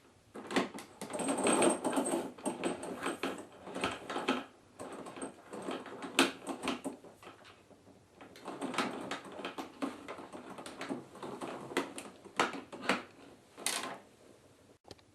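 Handling noise: irregular rustling and crinkling, most likely of plastic wrapping, with sharp clicks and knocks from parts being moved, dying away near the end.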